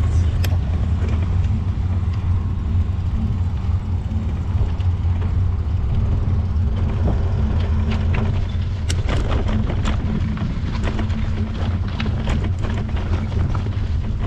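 Bicycle riding noise: a steady low rumble of tyres and wind on the microphone, with scattered clicks and rattles from about halfway through.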